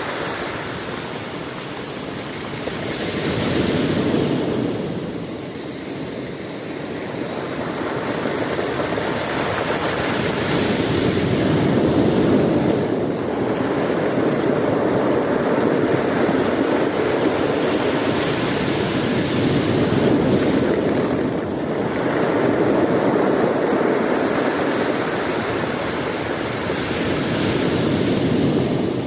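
Sea waves washing onto a shore: a continuous rushing surf that swells and eases every few seconds.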